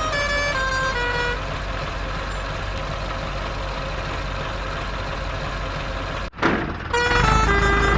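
A short electronic tune of stepping beeps, then a steady vehicle engine rumble with hiss for several seconds. It cuts out abruptly about six seconds in, and the beeping tune starts again near the end.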